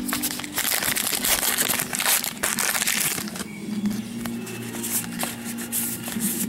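Trading card pack wrapper being torn open and crinkled in the hands, a dense crinkling for about three seconds that then dies down to quieter handling.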